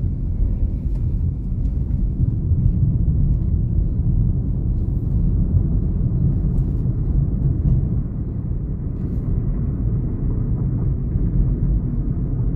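Steady low road and engine rumble of a Chevrolet Onix turbo driving along, heard inside the cabin.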